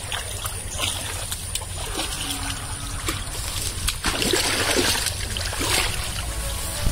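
Shallow stream water splashing and trickling around a water buffalo as it is waded up to and washed, with irregular splashes throughout.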